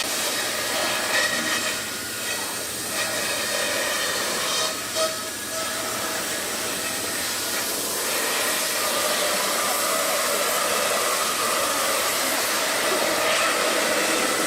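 CNC foam-cutting router running, its spindle cutting styrofoam with a steady hiss and a faint whine.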